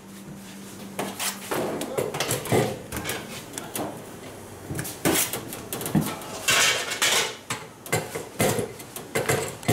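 Irregular metal clanks and knocks of bakery work at a stainless-steel bench, as bagel dough is cut with a scraper and weighed on a scale with a metal pan. A steady low hum stops about a second and a half in.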